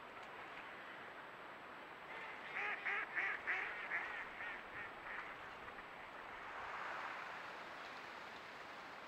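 Mallard hen quacking: a run of about eight quacks that starts loud and fades off over about three seconds, like a decrescendo call.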